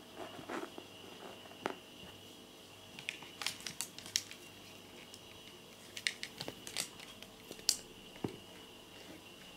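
Thin clear plastic bag crinkling and crackling in short, irregular bursts as a tabby kitten lying inside it shifts and mouths a feather toy. The crackles bunch up a few seconds in and again past the middle.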